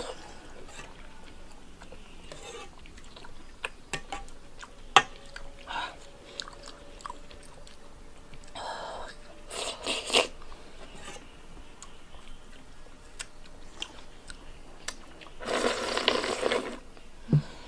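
A person eating hot, soupy Laba rice, slurping it from a metal ladle and then drinking straight from a tilted enamel bowl, with a long slurp near the end. Short slurps come around the middle. A few sharp clicks of the ladle against the bowl are heard, the loudest about five seconds in.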